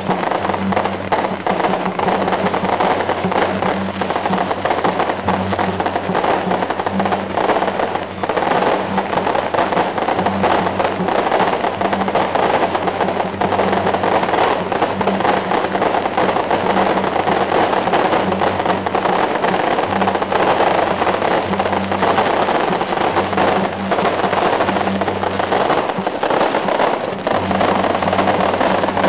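Long strings of firecrackers crackling densely without a break, with a steady low hum underneath.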